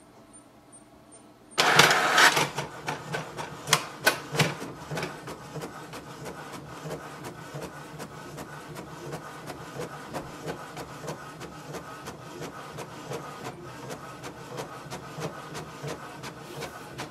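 HP DeskJet 3772 inkjet printer printing a page, its welcome sheet after setup. It starts abruptly with a loud clatter about a second and a half in, then settles into steady rapid ticking and whirring as the page feeds out.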